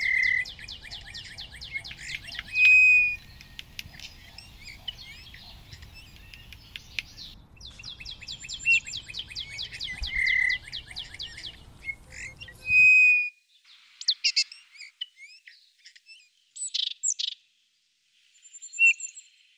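Songbirds calling: long runs of a rapid, high-pitched trill with a few loud, short whistled notes. About two-thirds of the way through, the background cuts off abruptly, leaving only scattered chirps.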